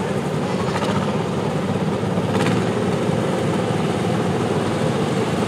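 Small garden tractor engines running steadily as a line of the tractors drives along, a continuous low mechanical hum.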